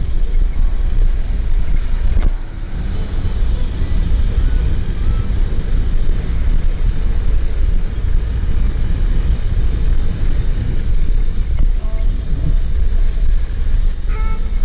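Vehicle on the move: steady engine and road noise with heavy low wind rumble on the microphone, easing briefly about two seconds in.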